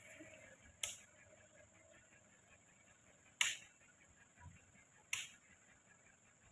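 Three faint, sharp clicks about two seconds apart, over a faint steady high hiss.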